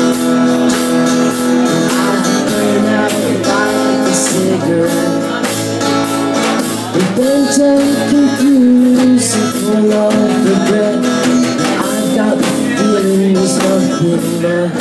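Live acoustic guitar strummed with a steady beat on snare drum and cymbal, a man's singing voice coming in over it at times.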